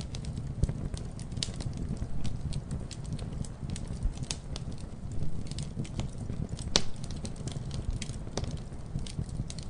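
Wood fire crackling: frequent sharp pops and snaps of varying strength over a steady low rumble of flames, with one louder pop near the middle.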